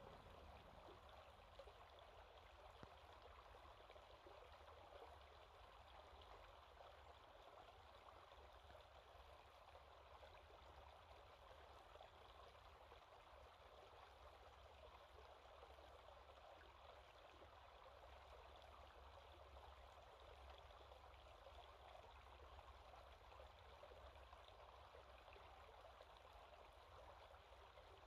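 Near silence: a faint, steady outdoor rushing noise with no distinct events.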